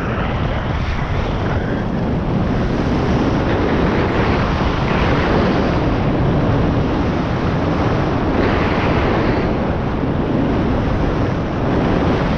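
Wind rushing over the microphone and the scrape of sliding at speed down a groomed snow run, swelling twice, about five and nine seconds in.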